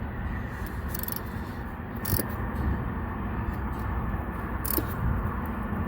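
Steady low rumble of vehicles and engines in the background, with a few short clicks from the hand work.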